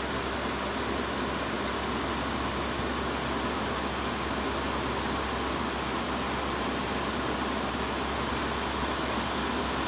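Fedders Weather Wheel window air conditioner running steadily: fan air noise over a low hum. The compressor runs abnormally quietly and the coil barely cools, a sign of a fault that the owner puts down to a low refrigerant charge.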